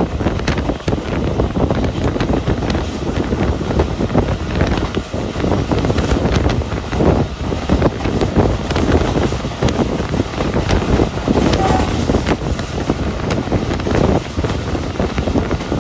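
Train running at speed, wheels rattling and clattering on the rails, with heavy wind buffeting the microphone.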